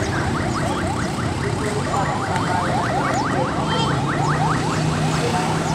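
A fast, even run of short electronic-sounding chirps, about six a second, over a steady low hum.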